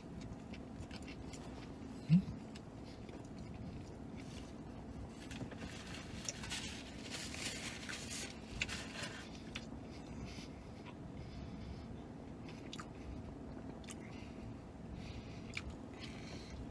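Close-up chewing, biting and mouth noises of a man eating a pretzel-bun bacon cheeseburger, with many small wet clicks. There is a short hum from the eater about two seconds in, and a paper napkin rustles against his face around the middle.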